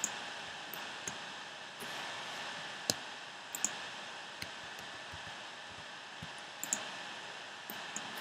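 Scattered single clicks of a computer mouse, about a dozen, irregularly spaced over a steady background hiss.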